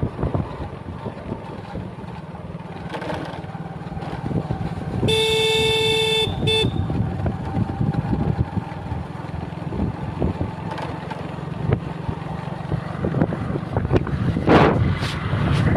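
Road traffic with wind noise, and a vehicle horn honking about five seconds in: one note of just over a second, then a short toot.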